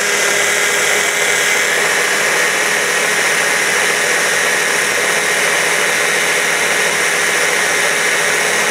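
Small electric hand blender with a mini chopper bowl running steadily at full speed, blitzing parsley and walnuts into pesto. The motor gives a loud, even whine with no change in pitch.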